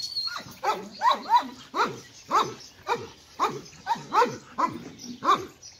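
German Shepherd dog yelping in a quick series of about a dozen short calls, each dropping in pitch, roughly two a second.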